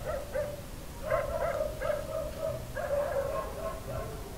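Dogs barking and yelping: a string of repeated, overlapping pitched calls.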